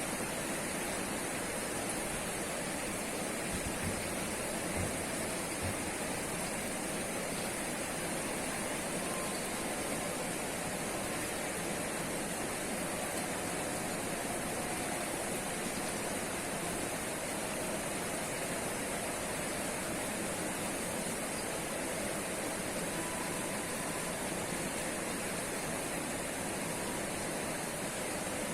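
River water rushing steadily, a constant even hiss.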